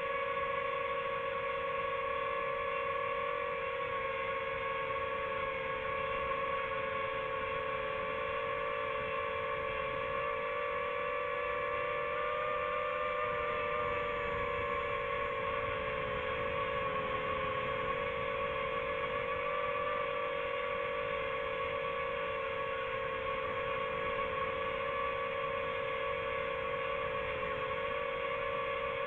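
Quadcopter drone's motors and propellers humming steadily while it hovers: a steady whine with an overtone an octave up, wavering slightly in pitch.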